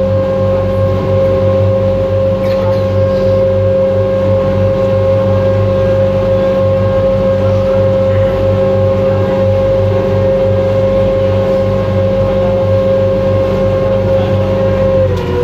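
Ferry boat's engine running steadily underway, a loud even drone that drops slightly in pitch near the end.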